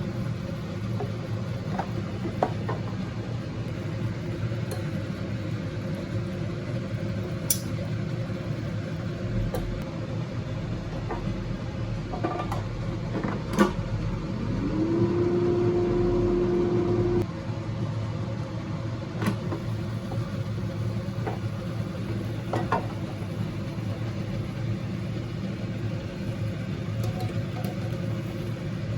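Steady low hum with a few light clicks, and a small electric motor that spins up about halfway through, runs steadily for about three seconds, then cuts off suddenly.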